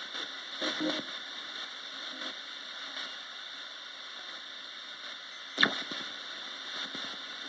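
Roberts radio hissing with static, with a short burst of sound just before a second in and a single sharp crack about five and a half seconds in.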